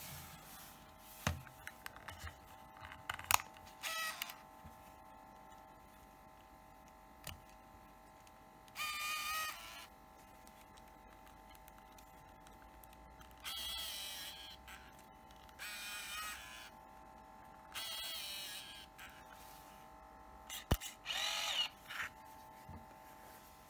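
Olympus SuperZoom 80G compact 35mm film camera's built-in motors whirring in five short bursts, each about a second long, as the camera drives its zoom lens and winds the newly loaded film, with sharp clicks from its body and buttons in between.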